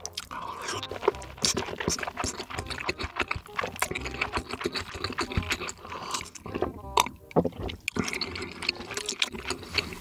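Close-miked chewing of a cheese-sauce-dipped piece of meat: wet, sticky mouth sounds with many small irregular clicks and smacks.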